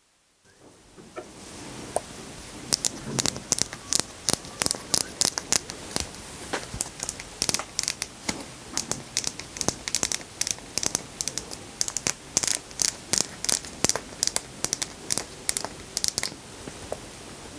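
Plastic packaging being crinkled and torn open up close, with a rapid run of sharp crackling clicks, about three or four a second, that starts about two seconds in and stops near the end.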